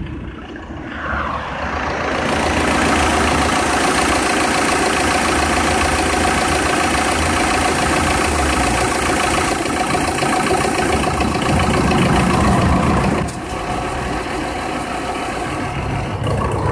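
Citroën Xsara Picasso 2.0 HDI diesel engine running, with a steady rush of air that swells about two seconds in and drops a notch near the end.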